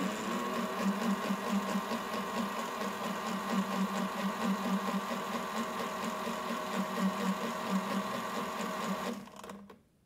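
AEG Öko Lavamat 86730 washing machine's drum motor turning the drum through the wash water: a steady motor whine over a pulsing hum. It winds down and stops near the end.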